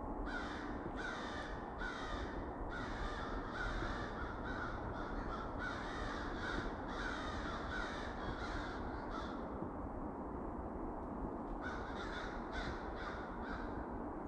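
Crows cawing: a long run of harsh, rapid caws, about two a second, for most of the first nine seconds, then after a pause a shorter run of about five caws near the end.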